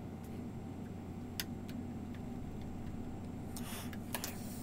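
A few faint, sharp clicks and taps of a small T2 precision screwdriver on the screws and plastic shell of a Quest 2 headset, with a short rustle of handling near the end, over a low steady hum.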